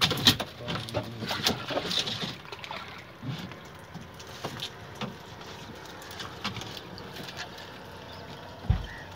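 Scattered taps and knocks on the floor of a small fishing boat, close together for the first three seconds and then sparse over a low steady background, with one heavier thump near the end.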